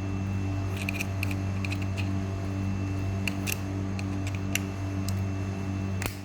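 Small sharp metal clicks and taps, some in quick pairs, from hand tools working on a car door lock as its cover is pried off, over a steady hum.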